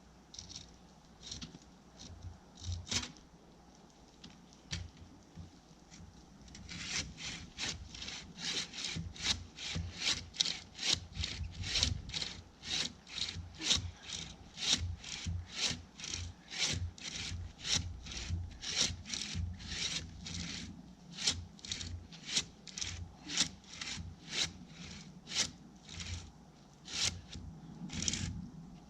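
Hand saw cutting through a tree trunk: a few slow strokes at first, then from about seven seconds in a steady back-and-forth of roughly two rasping strokes a second.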